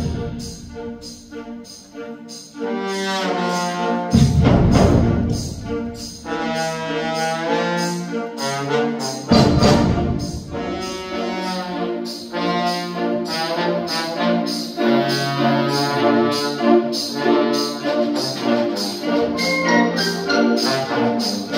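Concert band of woodwinds, brass and percussion playing, led by sustained brass chords. It starts softly, swells, and breaks into two loud full-band accents about four and nine seconds in.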